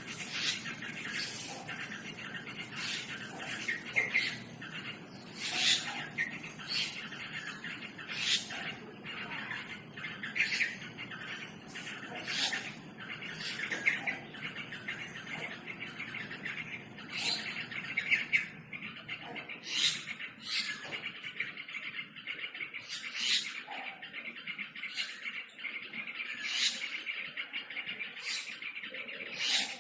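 A group of birds chirping and calling continuously, with many overlapping chirps and sharp, louder calls every second or two.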